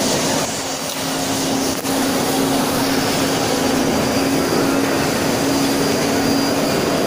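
Steady loud noise of a large, crowded indoor hall, with a constant low hum running through it.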